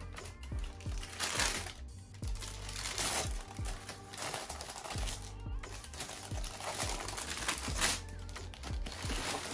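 Tissue paper in a sneaker box crinkling in several bursts as it is unfolded by hand, over background music.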